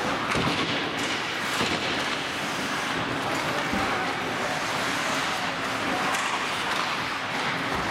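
Ice hockey game noise in a rink: a steady hiss of skates scraping and carving the ice, with a few light knocks of sticks and puck.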